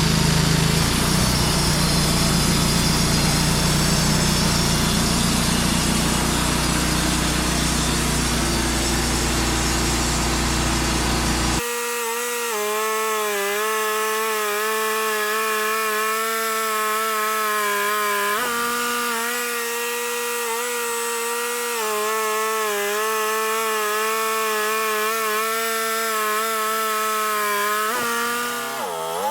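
Wood-Mizer portable band sawmill running, its blade cutting through a hickory log into slabs. About twelve seconds in, the sound changes abruptly to a steady pitched whine that sags briefly in pitch a few times, most deeply near the end.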